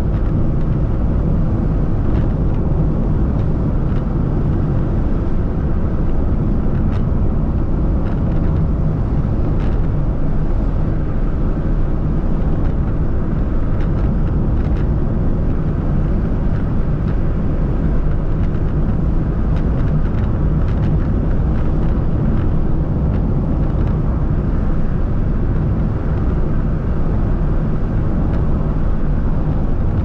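Car driving on the highway: a steady, unbroken low rumble of road and engine noise.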